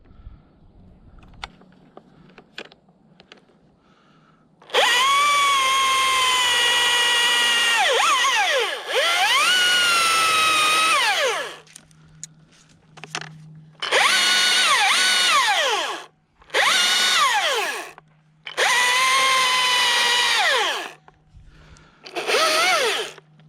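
Husqvarna T540iXP battery chainsaw cutting pine in five bursts, each a high electric whine that dips in pitch and climbs back during the cut. The first few seconds hold only a few light clicks before the saw starts.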